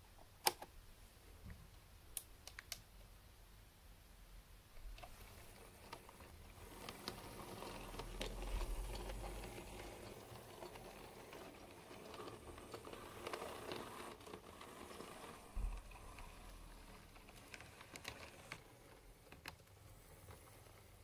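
Model railway 0-4-0 diesel shunter on a Hornby chassis running along OO-gauge track: a faint motor whir with a low hum that builds up and then fades, among scattered sharp little clicks.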